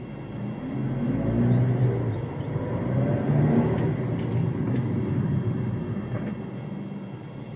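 MG ZS engine and tyre noise heard from inside the cabin, swelling over the first three seconds as the engine note rises, then slowly easing off.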